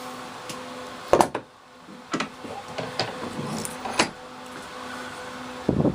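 A few separate knocks and clunks of wood and tools being handled at a workbench, the loudest about a second in, over a faint steady shop hum.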